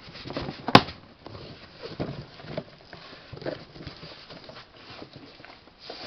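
A package being worked open by hand: scattered rustling and scraping of the packaging, with one sharp snap about a second in.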